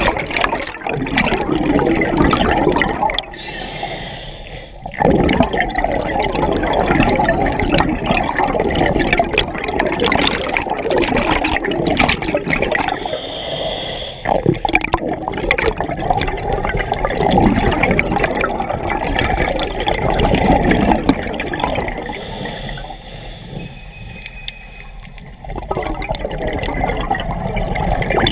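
Scuba regulator breathing heard underwater: long gurgling rushes of exhaled bubbles streaming past the camera, broken three times by quieter pauses with a high hiss as the diver inhales.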